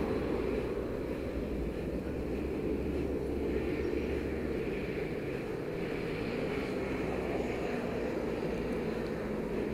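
Steady low rumble of wind and rolling road noise picked up by an action camera's microphone while it moves along a paved path.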